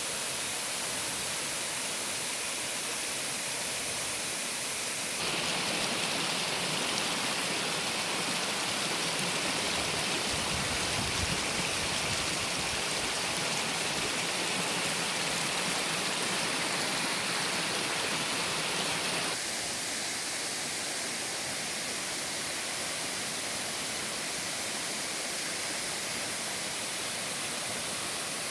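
Steady rushing of a 60-metre free-falling waterfall. It gets louder and brighter about five seconds in and drops back to the earlier level about nineteen seconds in.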